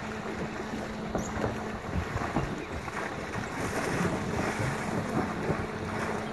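Wind rumbling on the microphone, with irregular splashing as wild dogs and a kudu run through shallow water. A low steady hum is present for the first two seconds.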